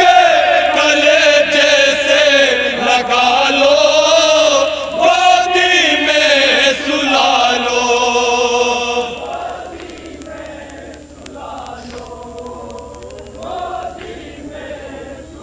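Group of men chanting a noha, a Shia lament for Karbala, in unison through a loudspeaker system. The chanting breaks off about nine seconds in, leaving fainter voices.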